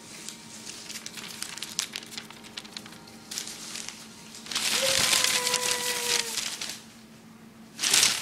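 Thin paper strips being shaken and crumpled: a crackling rustle that swells to a loud, dense rustle about halfway through and again near the end. A drawn-out, slightly falling pitched sound runs during the loud rustling.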